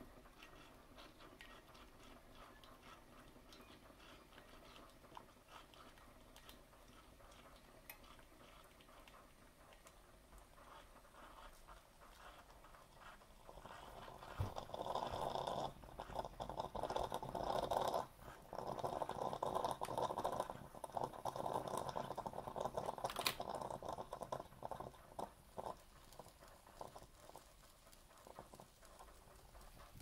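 Breville ESP4 espresso machine: a click about halfway through, then about ten seconds of uneven, crackly running noise with brief breaks, before it dies back down.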